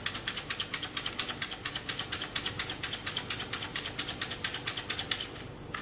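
Container of red chili flakes shaken rapidly over a glass bowl, the flakes rattling inside in a fast, even rhythm of about nine shakes a second that stops just before the end.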